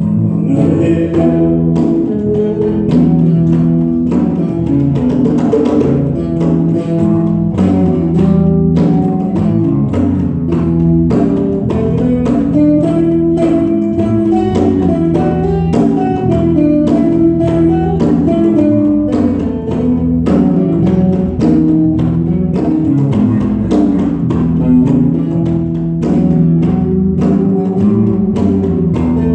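Small live band playing a song: electric bass and electric guitar over a steady beat of hand strokes on a djembe.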